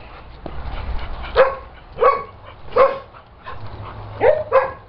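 A dog barking: five short barks, the last two close together.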